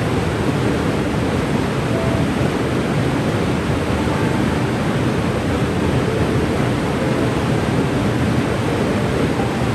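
Cane River Falls, a waterfall, rushing steadily: a constant, even noise of falling water, heaviest in the low and middle range.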